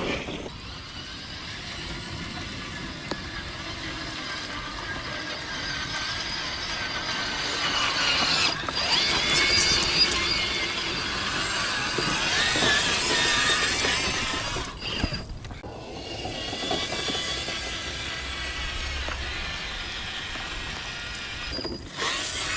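Electric RC car's motor whining as it drives, the pitch rising and falling with the throttle and loudest around the middle. The sound breaks off sharply a bit past halfway and again near the end.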